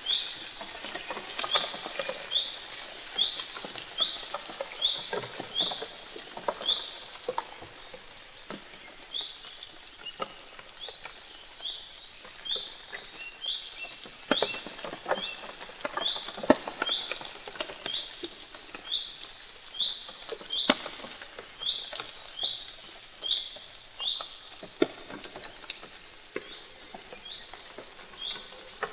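A short, high call, rising at the end, repeated about one to two times a second with a few brief pauses, over scattered clicks and crackles.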